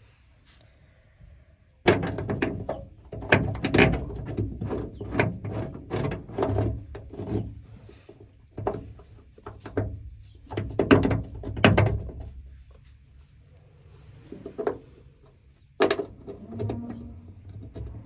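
Metal knocking and clunking on a feeder wagon's auger and bearing housing as hands and tools work on the bearing. The knocks come several a second from about two seconds in, pause, and return a few times near the end.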